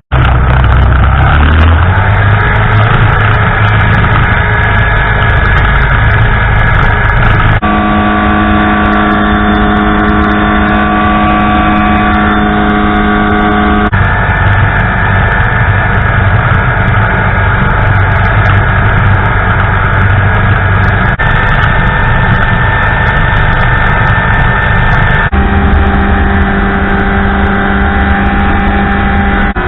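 Small ultralight aircraft engine and propeller running with a steady drone. The sound jumps abruptly to a different pitch several times, at cuts between segments.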